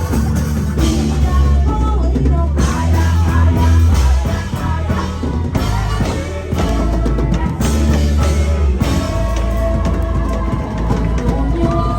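Live church band playing gospel music: a heavy bass line and drum kit with keyboard or guitar lines, and a voice singing over it.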